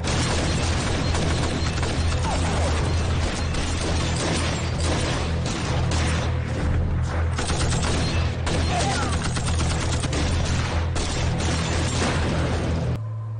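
Film battle sound effects: heavy, rapid gunfire and explosions over a low, steady music drone. The racket cuts off suddenly near the end.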